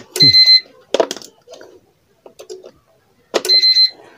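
Electronic beeper on the roll laminator's control panel sounding two steady high beeps, each about half a second long and about three seconds apart, as the machine is powered and its keys are pressed. A sharp knock comes about a second in.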